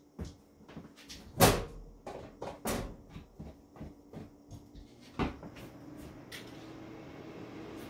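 Steel breaker-panel cover being handled and fitted by hand, giving a run of sharp metal knocks and small clicks of screws and screwdriver. The loudest knocks come about one and a half seconds in, near three seconds and a little past five seconds. A low steady hum comes up near the end.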